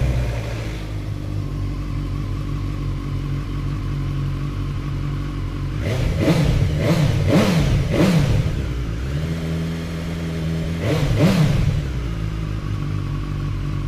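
BMW S1000XR's 999 cc inline-four engine catching and settling into a steady idle, then revved with about four quick throttle blips around six to eight seconds in and another about eleven seconds in, dropping back to idle between.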